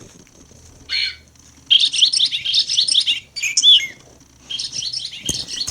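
Recorded bird call played from a Wild Republic Audubon plush toy bird's small built-in speaker: a short high call about a second in, then a rapid run of high chirps and trills, with another burst of chirping near the end.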